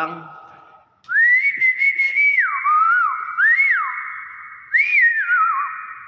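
Common hill myna whistling clear notes: a long held note starting about a second in, then notes that slide down and back up, and a second gliding phrase near the end.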